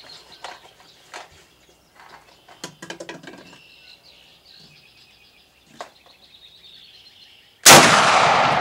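A single loud gunshot from an old M1 rifle near the end, a sharp crack followed by an echo that dies away over a second or two.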